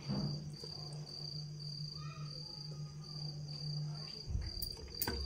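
Cricket chirping steadily in high, even pulses about two a second, over a low steady hum that stops about four seconds in; a soft low thump and a click follow near the end.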